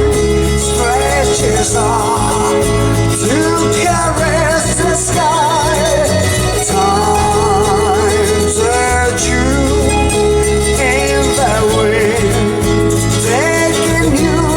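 A song with a singer's voice over instruments and a steady bass line, played through a Lexus CT200h's Mark Levinson audio system.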